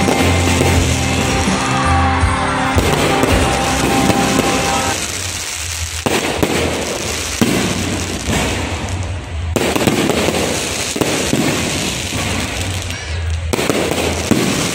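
Aerial fireworks bursting and crackling in quick succession, with music playing over them that is clearest in the first five seconds.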